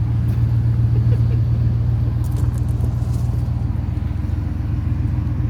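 A Ford vehicle's engine idling steadily, a constant low hum.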